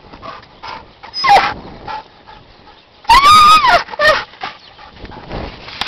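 A dog whining and yelping in high pitched calls: a short falling yelp about a second in, a long rising-and-falling whine past the halfway point, then a short yelp right after.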